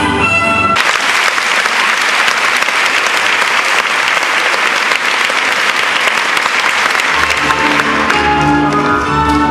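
Audience applauding loudly after orchestral ballet music breaks off about a second in; the orchestra starts again about seven seconds in as the applause dies away.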